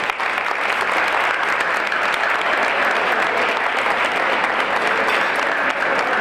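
Audience clapping in a steady round of applause.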